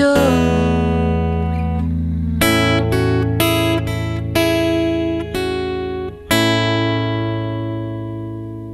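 Acoustic guitar closing a song: a held chord fading, then a handful of strummed chords from about two seconds in, and a last chord struck about six seconds in that rings out and slowly dies away.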